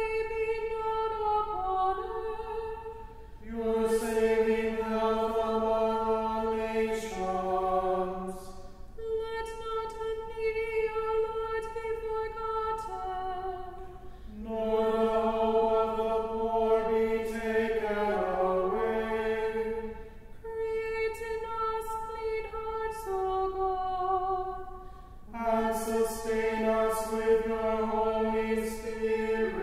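Unaccompanied singing of a slow chant, in held phrases of about five seconds with short breaks between them.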